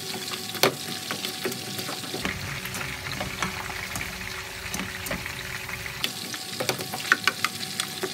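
Mortadella scraps, chopped green bell pepper, garlic and onion frying in a nonstick pan with a steady sizzle. A slotted spatula scrapes and taps against the pan as the mix is stirred, the taps coming thicker near the end.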